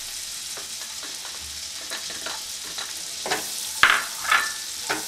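Shredded cabbage and sliced onion sizzling in melted butter in a nonstick frying pan, with a steady hiss. A slotted spatula stirs and scrapes the vegetables against the pan in short strokes, and there is a sharp knock a little under four seconds in.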